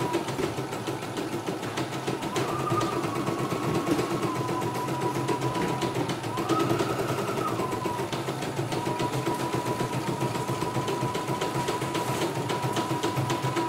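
CNY E900 computerized embroidery machine stitching, freshly oiled: rapid needle strokes over a steady motor whine. The whine rises in pitch twice for a second or two, about two and a half seconds in and again about six seconds in.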